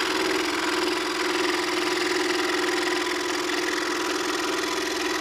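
Band saw running with a steady motor hum as its blade cuts through a wooden board.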